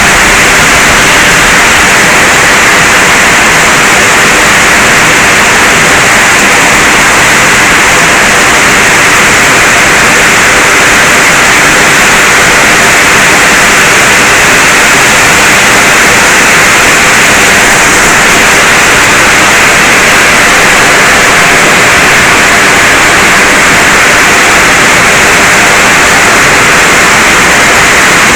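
Heavy rain falling, a loud steady hiss that does not let up.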